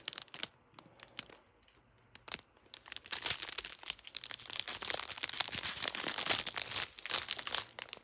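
Small clear plastic bags of diamond painting drills crinkling as they are handled and spread out: a few scattered crackles at first, then steady crinkling from about three seconds in until near the end.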